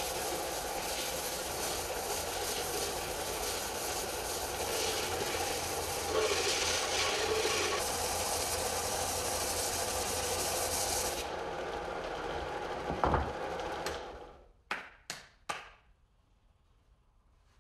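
Harbor Freight stationary belt sander running with a wooden block pressed against the moving abrasive belt, giving a steady rasping sanding noise. The hiss eases after about eleven seconds, and a few seconds later the motor shuts off and winds down, followed by three quick knocks.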